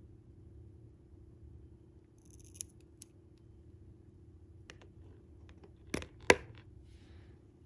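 Small cutters snipping the tag end of fishing line: two light snips a little under half a second apart, then about three seconds later two sharper clicks close together, the second the loudest, over a faint steady hum.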